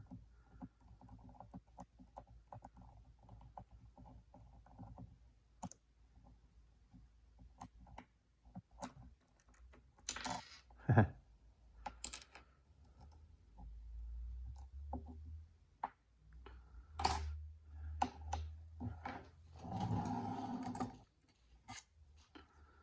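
Scattered small metallic clicks and taps of a Schlage key-in-knob lock cylinder and its parts being handled and taken apart, with a sharper click about eleven seconds in.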